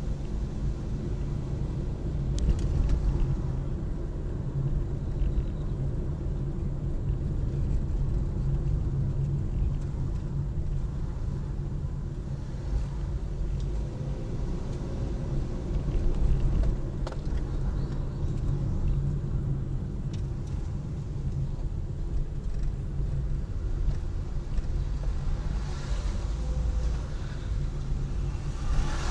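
A car driving: steady low engine and road rumble, with a couple of light clicks.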